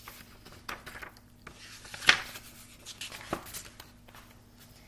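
Pages of a paperback picture book being turned and handled: several short paper rustles and flaps, the loudest a sharp snap about two seconds in.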